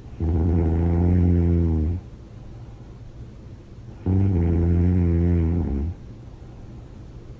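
A woman snoring loudly with her mouth open: two long, low snores about four seconds apart, each lasting nearly two seconds.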